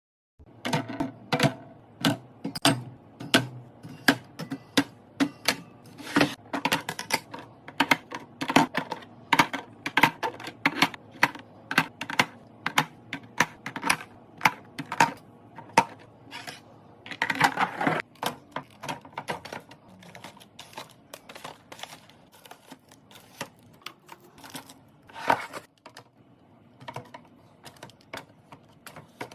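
Restocking: containers and packaged items being handled and set down, a quick run of sharp clicks and taps about two to three a second, with a longer scraping rustle a little past halfway and another near the end. The clicks thin out and grow quieter in the second half.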